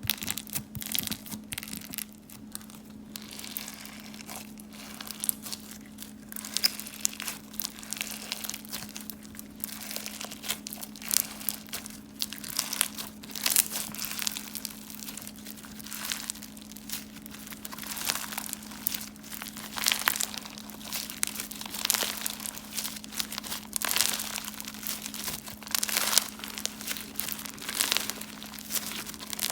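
Crunchy slime being squeezed and pressed by hand, giving dense, irregular crackling and crunching with a steady low hum underneath.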